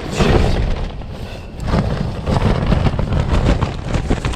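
Strong wind gusting against the microphone, with a wind-damaged tent's fabric flapping and cracking in quick rapid snaps; the gusts ease about a second in and pick up again.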